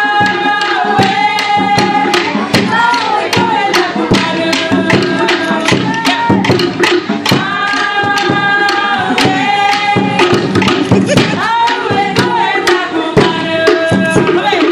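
Cook Islands dance music: a fast, steady beat on djembe-style hand drums with group singing in long held notes.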